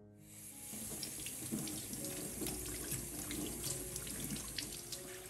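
Kitchen tap running water over king oyster mushrooms as hands rub and rinse them, with scattered small splashes and clicks.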